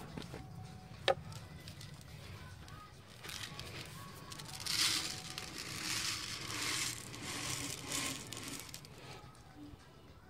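Small hard grains pouring from a plastic bottle into a gloved palm: a rustling, pattering rattle that comes in several surges over a few seconds. A single sharp click comes about a second in.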